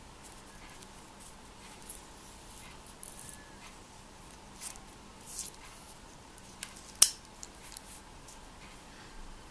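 Scattered small metal clicks and snaps of a Breitling watch's steel folding deployant clasp being worked and fastened on the wrist, the loudest a sharp snap about seven seconds in.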